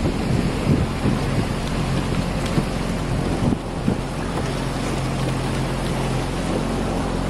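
Outboard motor of a following motorboat running steadily, with wind and water noise around it.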